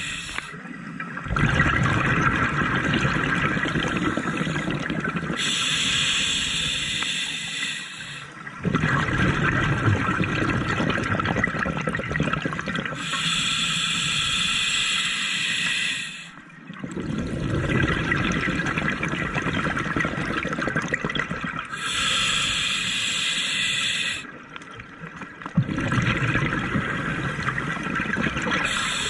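A scuba diver breathing through a regulator, in slow regular cycles. A hissing inhale through the demand valve alternates with a longer, louder bubbling exhale, about one breath every eight seconds, with a short pause between each.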